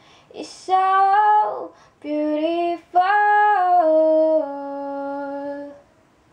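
A woman singing solo with no instruments: three short phrases, the last a long note that steps down in pitch and stops about half a second before the end.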